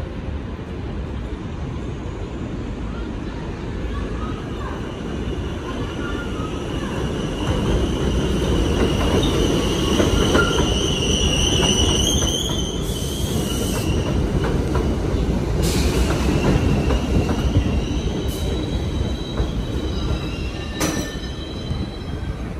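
R62A subway train pulling into an elevated station and slowing. Wheel-on-rail rumble builds over the first several seconds, with a high squeal from wheels and brakes, loudest about halfway through, then eases. A few sharp clicks come in the second half.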